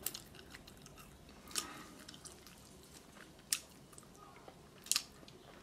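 A person chewing a mouthful of burger with their mouth closed: faint, with a few sharp, wet mouth clicks, about three over the few seconds.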